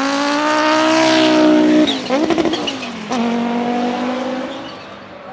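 Audi 90 IMSA GTO race car's turbocharged five-cylinder engine accelerating hard, its note rising. About two seconds in it lifts off the throttle with a choppy, crackling stutter and a sharp bang, then pulls on with a steady note that fades as the car moves away.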